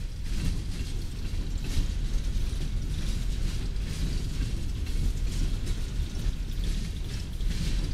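Loaded freight coal cars rolling past at speed: a steady low rumble of steel wheels on rail, broken by uneven metallic clacks and squeaks from the wheels and couplers.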